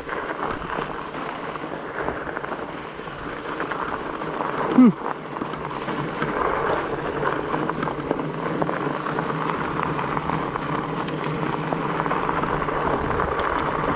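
Rolling noise of a Norco Bigfoot fat bike riding along a gravel rail-bed trail, a steady rushing that grows a little louder about six seconds in. A brief loud sound with a falling pitch cuts in about five seconds in.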